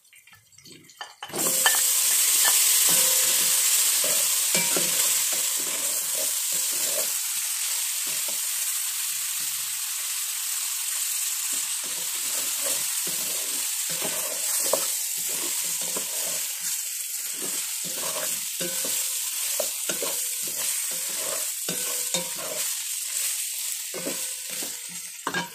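Parboiled beef ribs dropping into hot oil and fried spice paste in a steel pot set off a sudden loud sizzle about a second and a half in, which then keeps frying steadily. A wooden spatula stirs and scrapes the ribs through the paste throughout.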